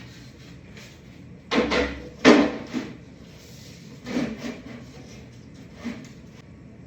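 Top boards of a train table being set onto its frame: a handful of wooden knocks and scrapes, the loudest two close together at about a second and a half and two seconds in, then softer ones near four and six seconds.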